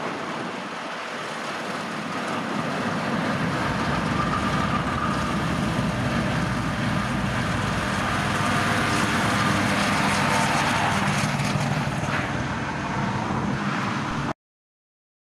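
Diesel-electric locomotives passing close below, their engine noise swelling as the units go by and then holding steady. The sound cuts off abruptly near the end.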